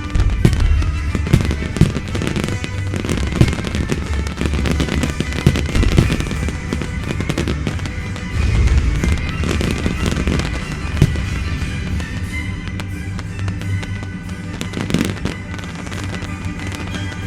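Aerial fireworks display firing rapid bangs and crackling reports, densest in the first half, with its accompanying music playing loudly throughout.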